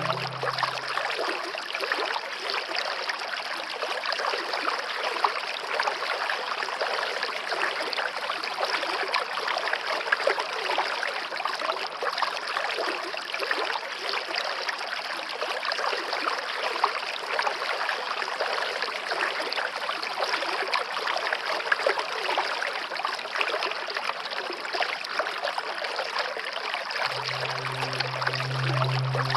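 Waterfall water rushing and splashing, a steady even noise with no change throughout.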